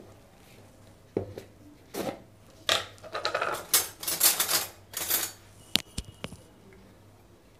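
Kitchen handling of a container of cornflour and a steel spoon: a couple of knocks, a few seconds of scraping and rustling, then a few sharp clinks of the spoon near the end.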